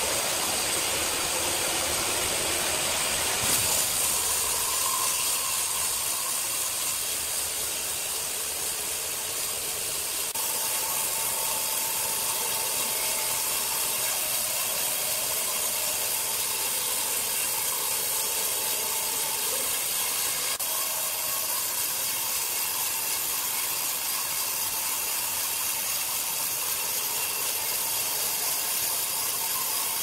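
Horizontal band sawmill cutting lengthwise through a large timber log: the running blade in the wood gives a steady, high hiss. A brief knock about three and a half seconds in.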